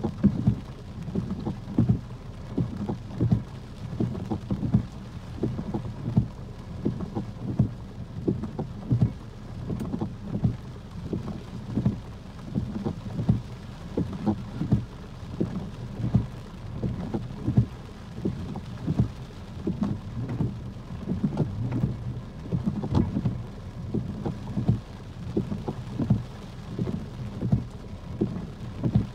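Rain drumming on a car's roof and windshield, heard from inside the car: a steady patter with frequent louder drop hits.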